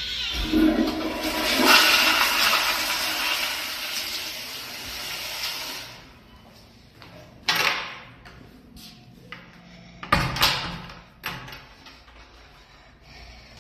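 Kohler commercial toilet flushing through a wall-mounted flushometer valve: a loud rush of water that tapers off after about six seconds. Two short, loud bangs follow, one about halfway through and one about three-quarters of the way through.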